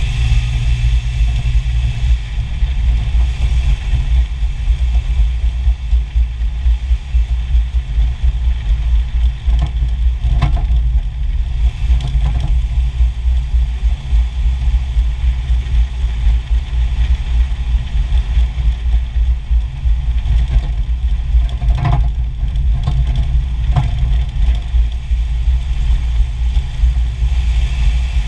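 Jeep running steadily, with a few sharp clunks, about four, scattered through: the clunking noise the owner is recording.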